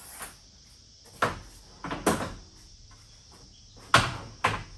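A few sharp knocks and clunks, about a second or two apart, the loudest near the end, like gear being set down and moved on a metal roof rack. A faint steady high hiss runs behind them.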